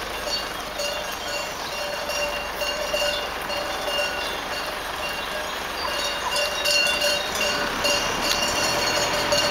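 A flock of sheep moving along a paved road: many hooves on the asphalt, with bells ringing on and off over a steady mix of noise. A car runs slowly behind the flock.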